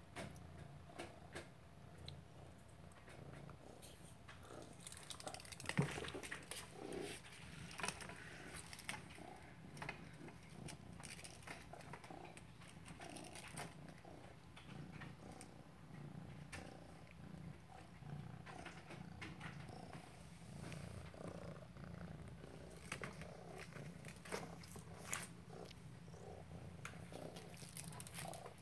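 Maine Coon cat purring steadily, close up. Scattered light taps and scrapes run through it, with one sharper knock about six seconds in.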